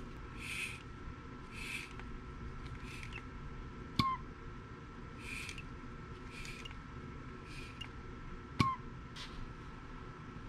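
Nissan Z24 2.4-litre four-cylinder engine idling with a steady low rumble and a thin steady whine. Short hissing puffs come roughly once a second, and two sharp clicks stand out, one about four seconds in and one near the end.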